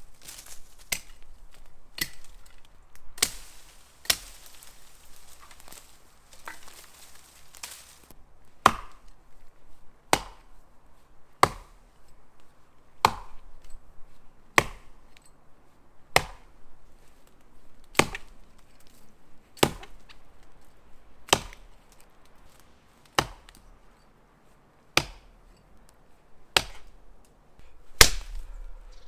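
Axe chopping into a small tree trunk. A few uneven blows over a rustling hiss at first, then steady, evenly spaced strikes about every one and a half seconds.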